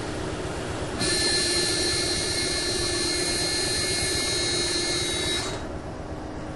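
NS DE II diesel-electric trainset running with a steady hum. About a second in, a loud hiss with high whining tones starts abruptly, then cuts off suddenly about five and a half seconds in.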